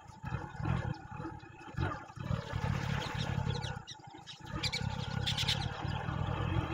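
Motorcycle riding along a rough dirt track: the engine running with wind buffeting the microphone, the low rumble dipping twice and picking up again.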